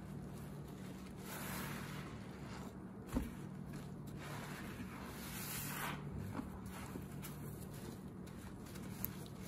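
Soapy yellow sponges squeezed by hands in plastic gloves in a bucket of thick suds: wet squishing and crackling of foam that swells with each slow squeeze, every few seconds. A single sharp knock about three seconds in, over a steady low hum.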